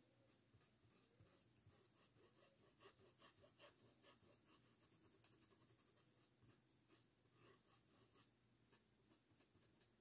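Faint, quick scratching strokes of a paintbrush's bristles across cotton fabric, several a second and uneven in rhythm, as paint is brushed and blended on the cloth.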